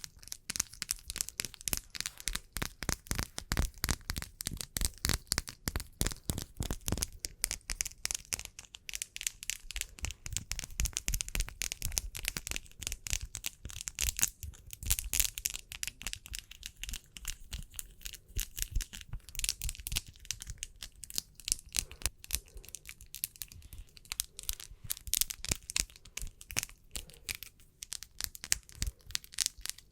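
ASMR fingernail tapping and hand rubbing: a rapid, continuous crackle of many small clicks with a dry rustling hiss.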